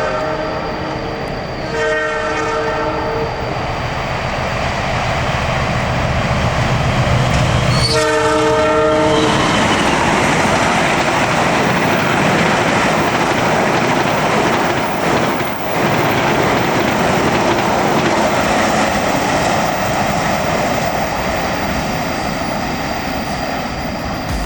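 Locomotive horn sounding two blasts, about two seconds in and a louder one about eight seconds in. The passenger train then passes close by, with a loud steady rush and clatter of wheels and carriages on the rails for the rest of the time.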